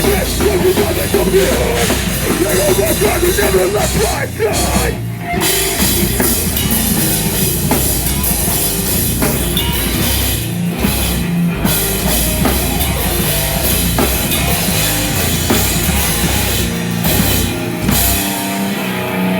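Heavy rock band playing live and loud: distorted guitars over a pounding drum kit, with a brief break in the low end near the end.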